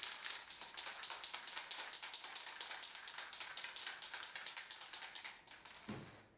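Aerosol spray-paint can being shaken, its mixing ball rattling in a fast, even run of sharp clicks. A soft low thump comes near the end.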